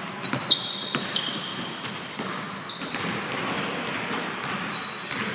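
Basketball being dribbled and bounced on a hardwood gym floor during a pickup game, with sharp thuds loudest in the first second. Sneakers squeak on the floor several times in the first second and a half and again near the end.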